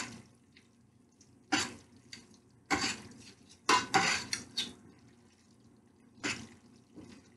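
Metal utensils clinking and scraping against a stainless steel pot while fettuccine is tossed in a creamy Alfredo sauce. The clinks are irregular: one or two early, a quick cluster of four around the middle, and one more near the end.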